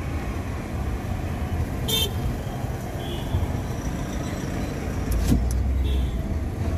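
Steady low rumble of a Hyundai i20 moving in city traffic, heard from inside the cabin, with a short horn toot from nearby traffic about two seconds in and a few fainter short toots later.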